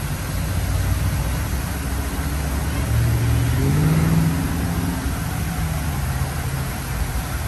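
Steady rush of water running down the Crown Fountain's glass-block tower, with a motor vehicle's engine accelerating from about three seconds in and fading out a few seconds later.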